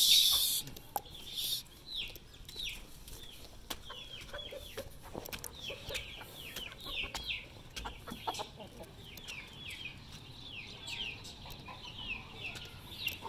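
Chickens calling: a continuous run of short, high, falling peeps, several a second. There is a brief loud rustle at the very start and faint scattered clicks.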